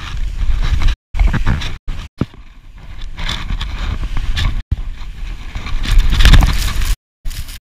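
Skis scraping and hissing through snow during turns, over heavy wind rumble on the microphone. The sound cuts out completely several times for a moment.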